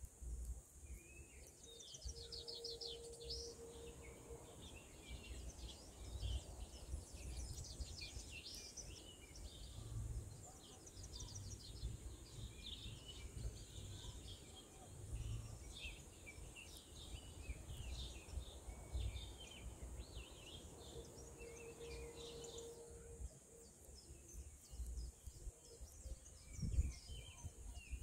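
Small birds chirping and calling in many short, overlapping notes, over a steady high hiss and a low, gusty wind rumble on the microphone. A brief steady hum sounds twice, near the start and again near the end.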